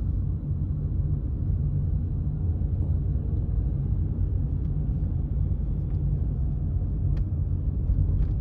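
A car driving, with a steady low road-and-engine rumble.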